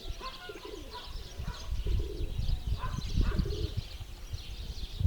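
Domestic pigeons cooing in short low phrases about every second and a half, with small birds chirping faintly and an uneven low rumble underneath.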